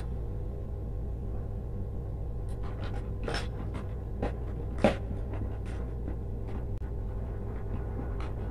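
Electrical wire being handled and pulled into a plastic junction box by hand: scattered small clicks and rustles, two of them louder around the middle, over a steady low hum.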